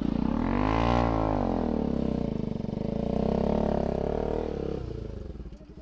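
Motorcycle engine revved hard, its pitch sweeping up to a peak about a second in and falling back, then held high and wavering before dropping to a lower, steadier note near the end, as the bike slithers through deep mud.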